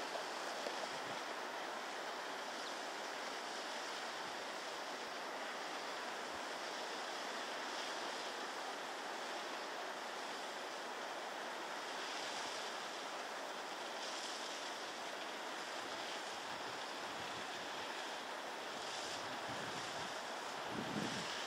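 Steady, even rushing noise of the open mountainside, with no break, and a brief low bump near the end.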